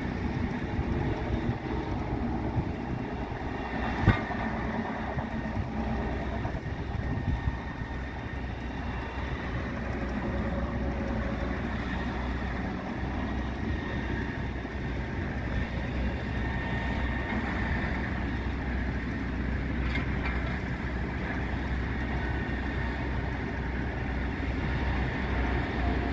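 Diesel engine of a hi-rail grapple truck running steadily while it works its grapple at the track, with a sharp knock about four seconds in and a fainter one near twenty seconds.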